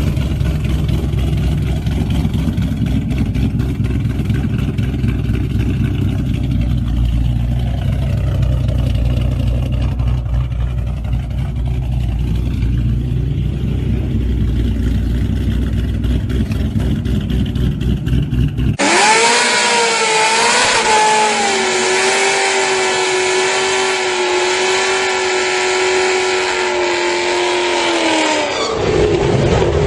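Ford Mustang engine sounds: a steady low rumble for most of the time, then, after an abrupt change about two-thirds of the way in, an engine held at high revs with a high, nearly steady pitch for about nine seconds before the revs drop near the end.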